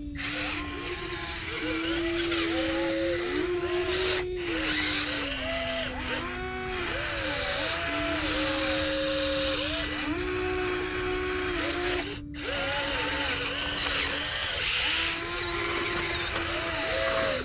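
Electric motors of a radio-controlled Volvo EC160E model excavator whining as the boom, arm and bucket move, the pitch stepping up and down and short rising-and-falling whines starting and stopping every second or so. The sound drops out briefly twice.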